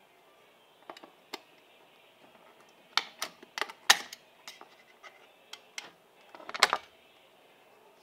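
Tin snips cutting the thin metal power jumper on the back of a plastic slot-car power track piece, with handling of the plastic track: a string of sharp clicks and snaps, irregularly spaced, the loudest about six and a half seconds in.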